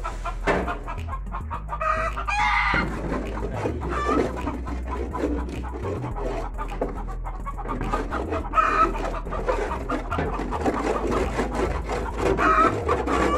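Backyard chickens clucking, with a rooster crowing several times.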